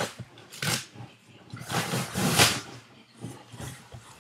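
Cardboard shipping box being opened by hand: the flaps scrape and rustle in a few short bursts, the loudest about two and a half seconds in.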